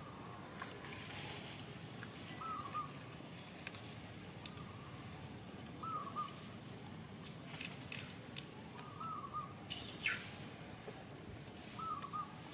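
A bird calling outdoors in short double- and triple-note phrases, repeated every couple of seconds over faint background ambience. About ten seconds in there is one brief, loud, sharp noise.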